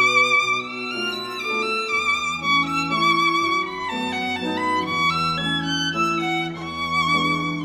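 Background music: a violin playing a melody with vibrato over lower held notes that change every second or so.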